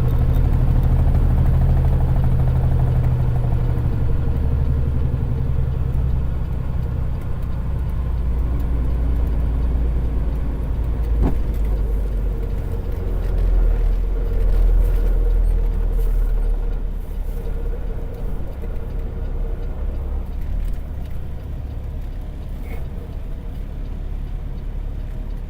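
Semi-truck diesel engine running with a steady low drone that eases off somewhat in the second half, with a single short click about 11 seconds in.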